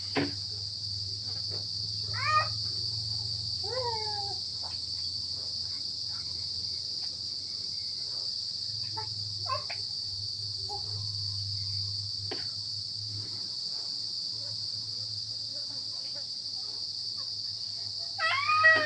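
Steady high-pitched chirring of insects, with a low hum beneath. A few short calls cut in, the loudest near the end.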